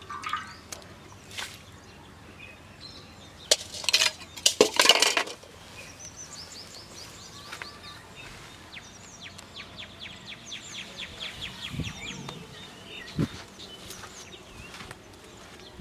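A burst of loud metallic clinks and clatters, like steel plates and pans being handled, about three to five seconds in. After that, small birds chirp steadily in rapid repeated trills.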